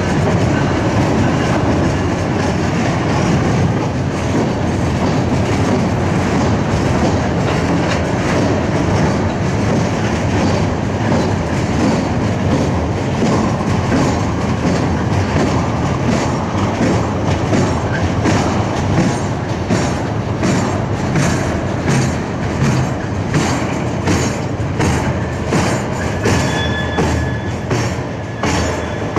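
Freight train tank cars rolling across a low trestle bridge: a steady rumble of wheels with rapid clickety-clack over the rail joints, the clicks growing more distinct towards the end. A faint high wheel squeal is heard near the start and again near the end.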